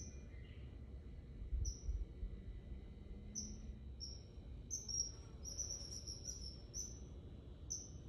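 Common kingfisher calling: short, high, thin whistled notes, each dipping slightly in pitch, repeated every second or two and bunching into a quick run of calls about five seconds in.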